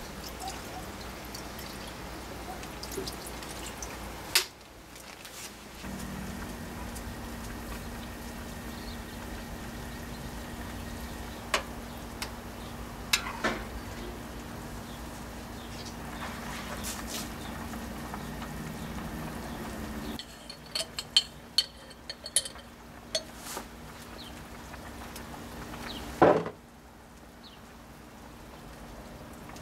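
Cooking sounds: a steady hiss of liquid in a pot, with scattered clinks and knocks of utensils against pots and dishes. The sound changes abruptly a few times.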